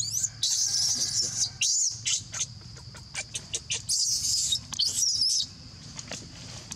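Baby monkey crying: a run of shrill, high-pitched squeals and short chirping cries, rising at first, that stops about a second before the end.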